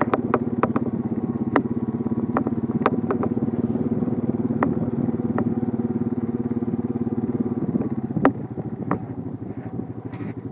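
An engine running steadily with a fast, even pulse, with sharp clicks and rattles scattered over it; it drops a little in level about eight seconds in.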